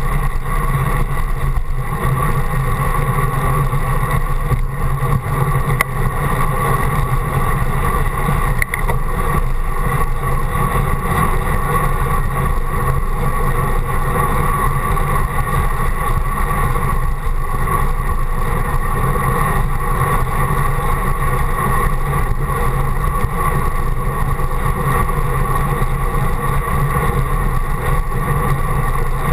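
Steady rush of wind and road noise picked up by a handlebar-mounted GoPro on a road bike riding at speed.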